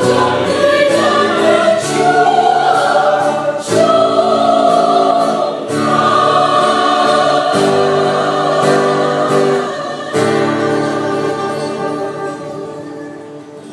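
Vietnamese church choir singing a hymn in long held chords, fading out over the last few seconds.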